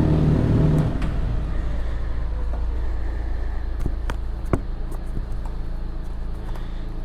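Suzuki GSX-R1000's inline-four engine running, dropping about a second in to a quieter steady low idle, with a few sharp clicks.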